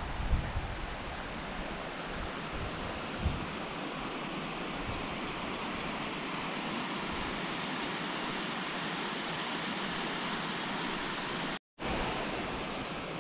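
Steady rushing of water spilling over a weir spillway, with a few brief low wind bumps on the microphone near the start. The sound cuts out for a moment near the end.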